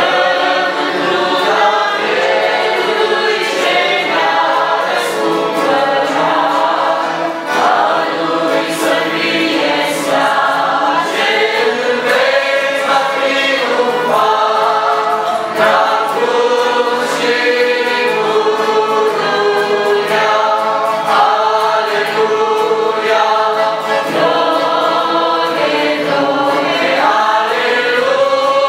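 Male voices singing a Christian hymn, accompanied by accordion and acoustic guitar.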